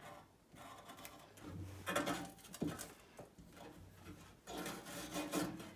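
Felt-tip marker drawing a line on the rough, rusty steel of a front grill panel, with hands rubbing and brushing over the metal: faint scratching and rubbing on and off, with a couple of small clicks.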